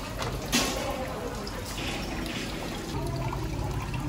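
Water trickling and dripping, with one sharp knock about half a second in.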